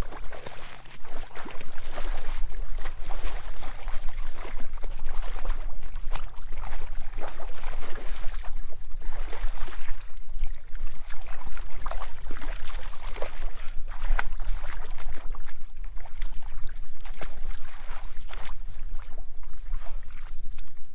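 Water splashing irregularly as a large hooked trout thrashes at the surface and in a landing net, with a steady low rumble underneath.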